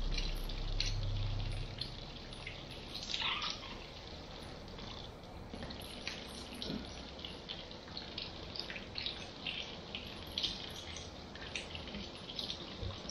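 Water from a handheld salon shower head running onto hair and splashing into a shampoo basin, with frequent small splashes and drips as fingers work through the hair. A low hum stops about two seconds in.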